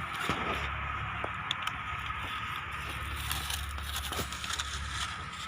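Bread dipped in egg frying in oil on a dosa tawa: a steady sizzle with a few light clicks or scrapes.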